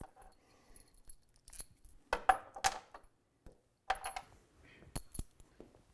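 Suspension mounting bolts, washers and lock nuts clinking as they are set down in a snowmobile ski: a few short separate clinks, about two, four and five seconds in.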